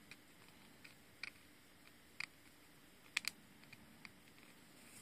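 Fingernails picking at a tiny toy book, making a few faint, scattered clicks and taps over near silence, the loudest a quick double click about three seconds in.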